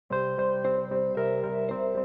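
Instrumental background music starting just after the opening, with held notes that change every quarter to half second.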